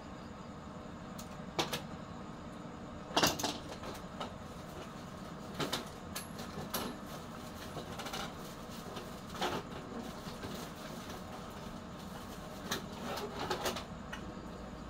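Scrap computer motherboards knocking and clattering as they are handled and packed into a woven plastic sack: a string of separate knocks, the loudest about three seconds in, over steady background noise.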